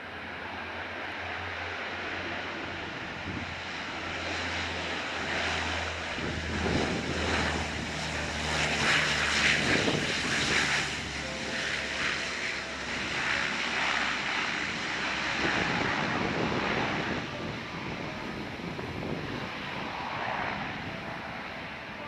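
Saab 340B's two General Electric CT7-9B turboprop engines and propellers during the landing rollout. The sound builds as the aircraft passes, is loudest about halfway through, and fades as it rolls away.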